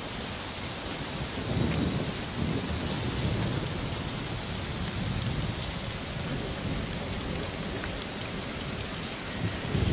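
Steady rain hiss, with low rumbles of thunder swelling and fading a few times.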